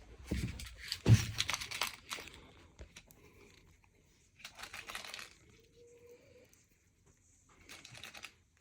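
Rustling, clicks and knocks of things being handled, with one sharp knock about a second in, then quieter rustling and a few clicks later on.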